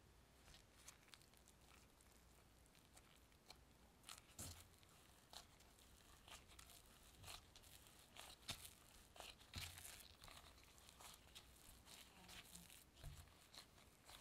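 Faint squishing and crinkling of a disposable-gloved hand kneading sticky bread dough in a glass bowl, with scattered small crackles and taps that come more often from about four seconds in.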